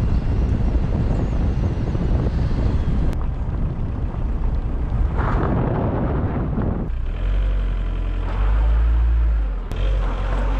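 Heavy wind buffeting on the microphone as a low rumble for the first several seconds. From about seven seconds in, a diesel Škoda Octavia's engine runs with a steady low hum.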